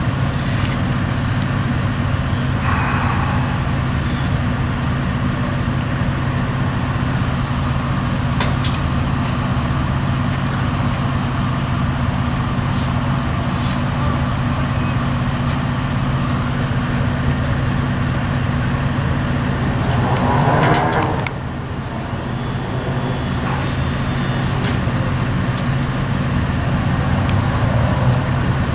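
Heavy vehicle engine idling steadily. About twenty seconds in there is a short hissing burst, after which the engine sound is slightly quieter.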